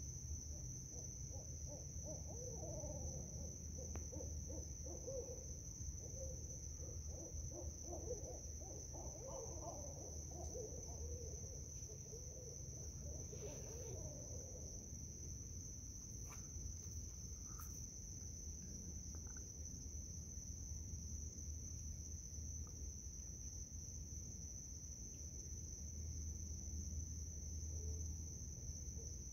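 Several barred owls hooting back and forth in a dense, wavering jumble of calls for roughly the first half. They die down, then start again near the end.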